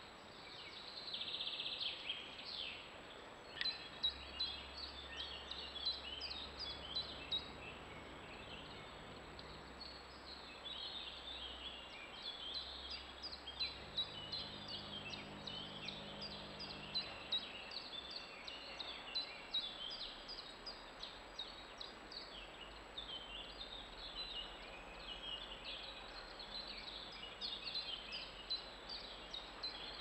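Several songbirds singing together, a dense, unbroken stream of quick, high, twittering notes.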